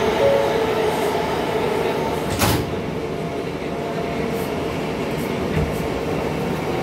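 R160 subway car's doors sliding shut, ending in a sharp slam about two and a half seconds in, over the standing car's steady hum.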